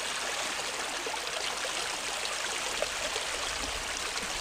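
Steady rushing of water flowing along a small muddy irrigation ditch.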